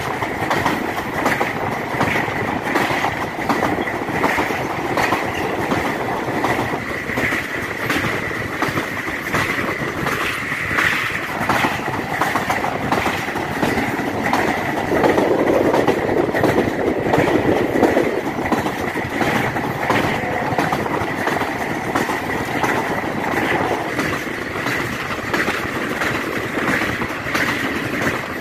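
Passenger train running along the track, its wheels clattering over the rail joints, with a steady high-pitched tone over the rumble. It swells louder for a few seconds around the middle.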